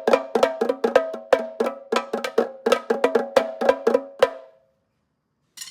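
Improvised drumming on household objects: quick, uneven strikes, about six or seven a second, each with a short ringing tone like a wood block. The drumming stops about four seconds in.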